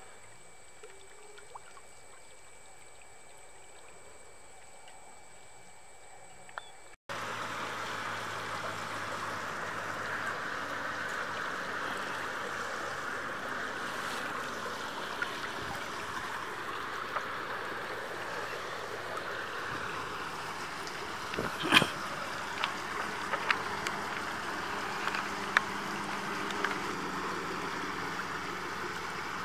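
Water trickling and dripping through the mesh of a lifted fishing net. It starts abruptly about a quarter of the way in and runs as a steady trickle, with a few sharp taps and splashes about two-thirds through.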